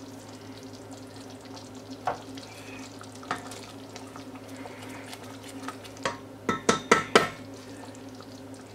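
Wooden spoon stirring a simmering sauce in a stainless steel saucepan, the liquid bubbling softly. The spoon knocks against the pan now and then, with a quick run of louder knocks in the second half.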